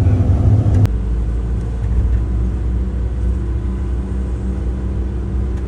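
A motor vehicle running, with a steady low engine and road rumble. A click about a second in is followed by a change in the engine note.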